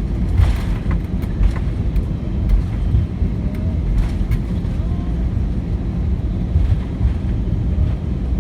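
Airbus A319 cabin noise during taxi: a steady low rumble from the idling engines and the wheels rolling on the taxiway, with a few light knocks and rattles.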